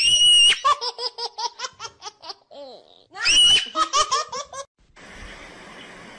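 High-pitched laughter: a sharp squeal breaks into quick repeated 'ha' pulses, twice. Near the end it gives way to a steady hiss.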